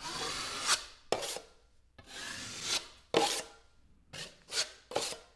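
Metal putty knife scraping wet joint compound across a drywall patch in a series of strokes: a few longer sweeps, then shorter, quicker ones near the end, smoothing the first coat and cleaning up its edges.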